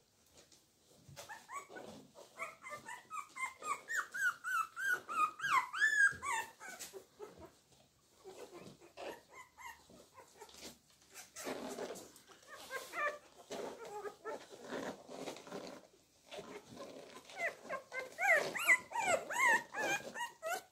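Young Tibetan Terrier puppies squeaking and whimpering in quick, short, high calls that rise and fall in pitch. There are two lively bouts, one from about two to seven seconds in and another near the end, with softer sounds between.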